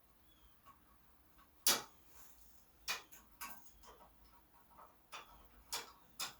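Hand ratchet wrench clicking in short separate bursts while driving screws back in, with the loudest sharp click about two seconds in.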